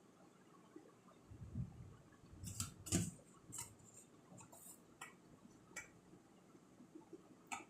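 Faint eating sounds: a scatter of sharp clicks and light knocks, the loudest about three seconds in, with soft low thuds between them.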